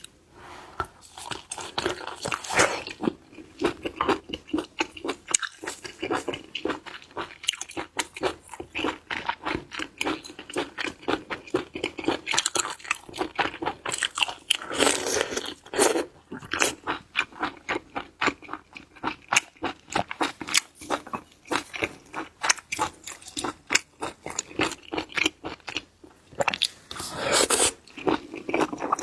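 Close-miked eating of seafood: a rapid, continuous run of crisp crunching bites and chewing.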